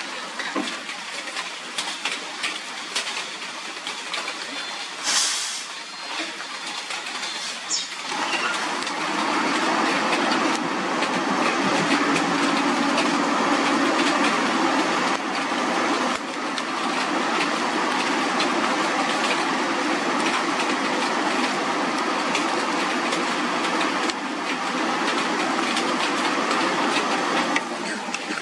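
Hino container truck's diesel engine working hard under load as the truck climbs a steep, wet grade. It grows louder about eight seconds in and then runs steady.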